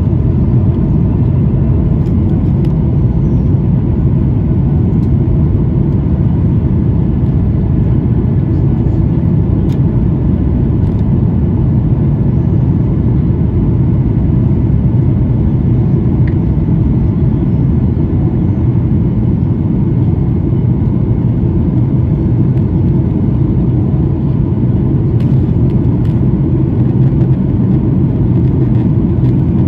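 Loud, steady roar of a Boeing 737's jet engines at climb power and air rushing past the fuselage, heard inside the passenger cabin, with a faint steady whine above it.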